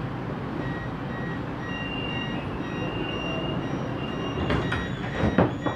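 Siemens Inspiro metro train's door-closing warning: a rapid series of electronic beeps, then the passenger doors sliding shut with a few knocks and a thud about five seconds in.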